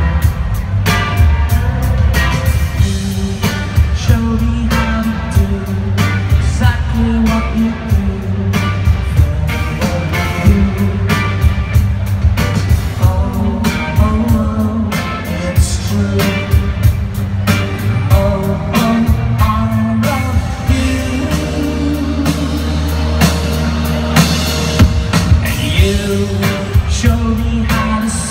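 Live rock band playing: lead singing over electric guitars, drum kit and keyboards, with a steady beat and a strong bass line.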